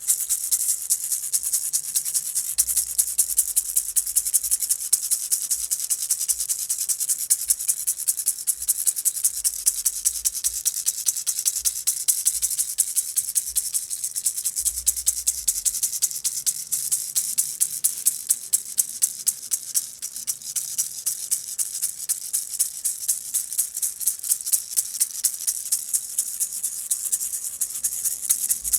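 A hand rattle being shaken in a fast, steady rhythm, a continuous dry rattling of many short strokes that goes on without a break.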